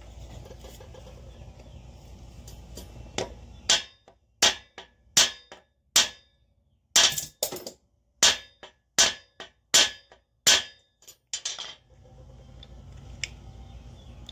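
The plastic body of a Bauer cordless jigsaw being rocked on its loose bevel-angle shoe mount, clacking sharply about a dozen times, roughly once every 0.7 s. The mount is loose enough to rock even when it sits in its detent teeth.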